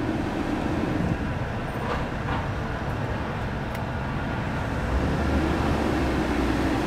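BMW climate-control blower fan running high, a steady rush of air through the dash vents, with a few faint clicks of the climate-control buttons. It gets a little louder and deeper about five seconds in. The fan is turned up to draw current and bring the battery voltage down from over 15 volts.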